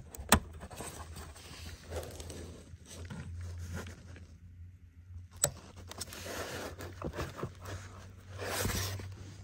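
Gloved hands working a plastic fuel-line quick-connect onto a fuel pump module: rustling and handling noise with two sharp clicks, one about half a second in and one about five and a half seconds in, over a low steady hum.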